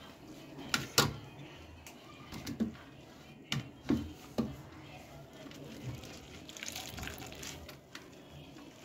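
Wet squelching and trickling as grated radish is squeezed by hand, its juice dripping into a small steel bowl, with a few sharp clicks scattered through it, the loudest about a second in.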